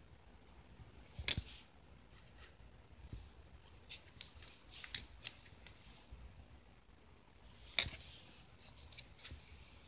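Pokémon trading cards being handled: a few sharp flicks and snaps of card stock as cards are lifted off a pile and laid down. The loudest come about a second in and again near eight seconds, with lighter taps in between.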